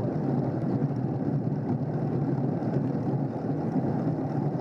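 Steady wind and road rush on the microphone of a camera mounted on a road bicycle riding in a racing pack, an even low rumble with no distinct events.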